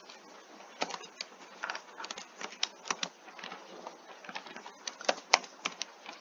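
Computer keyboard keys clicking as someone types, in irregular separate keystrokes.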